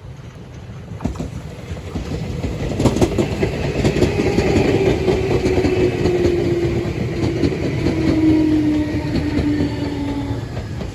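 Meitetsu 6800 series electric train, two sets coupled, pulling into a station. Wheels click over the rail joints, and a whine falls steadily in pitch as the train slows. The sound builds from about a second in and eases off near the end.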